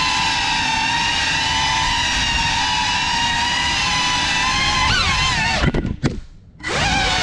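Cinelog 35 cinewhoop FPV drone's brushless motors and ducted propellers whining steadily, the pitch wavering as the throttle changes. About six seconds in there are two sharp knocks and the motors cut out briefly before spinning back up.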